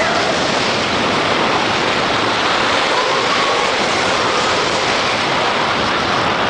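Steady rush of wind over the microphone and the running rumble of the Expedition Everest roller coaster train on its track at speed.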